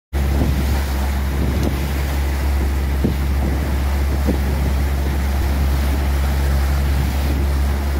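Suzuki outboard motor running steadily as the boat moves, with the wake churning behind the stern and heavy wind buffeting the microphone.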